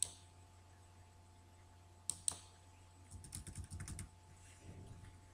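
Computer keyboard typing: a few single key taps, then a quick run of keystrokes about three seconds in, over a steady low electrical hum.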